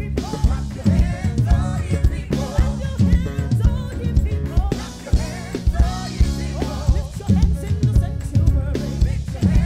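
Live band music: a five-string electric bass playing a groove under a drum kit and a singing voice.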